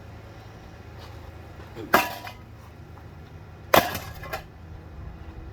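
A ceiling fan being smashed: two loud crashing impacts about two seconds apart, the second followed by a smaller clattering knock.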